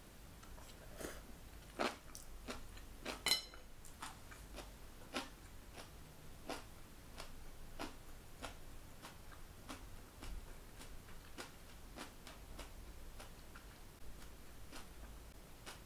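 Close, faint mouth sounds of someone chewing stir-fried bean sprouts and beef: small irregular clicks, about one or two a second. About three seconds in comes a louder click with a short ring, wooden chopsticks set down on a ceramic bowl.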